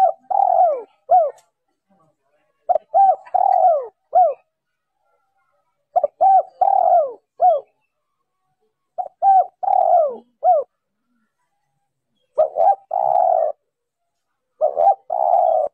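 Spotted dove cooing: six repeated phrases, about one every three seconds, each of two short coos, a longer sliding coo and a short final coo, with silence between.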